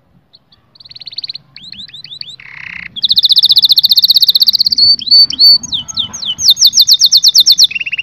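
White domestic canary singing: a song of fast rolling trills and short down-slurred whistles. It starts softly about a second in and turns loud about three seconds in.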